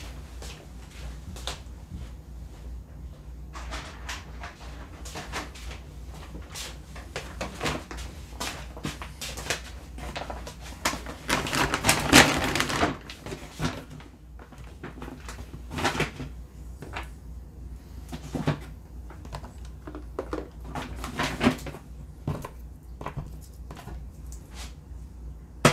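A tote bag rustling and being handled as gear is packed into it: scattered clicks and knocks, with a louder rustle about twelve seconds in, over a steady low hum.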